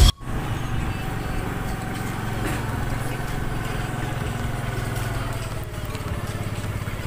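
Motorcycle engine running steadily while riding along: a low drone with rapid, even firing pulses, over a steady hiss.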